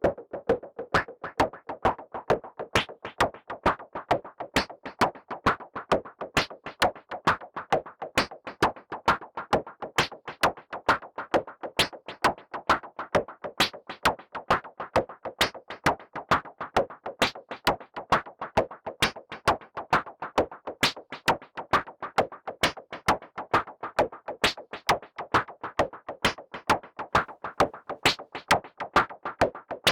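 Modular synthesizer percussion: white noise through a resonant Wasp filter, struck by a sequenced envelope and VCA into a delay, giving drum-like hits in a steady repeating rhythm of about two to three a second with changing accents.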